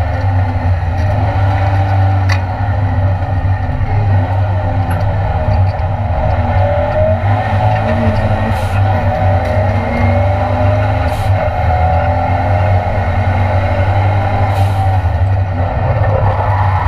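Ford Escort Mk2 race car's Cosworth engine running hard at racing speed, heard from inside the stripped cabin, its pitch rising and falling, with a few sharp clicks.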